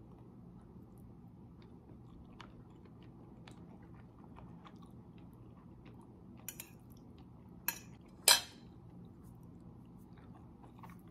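A person chewing a mouthful of pasta, with a few faint clicks of a fork on a plate. One sharp, loud click or smack comes about eight seconds in.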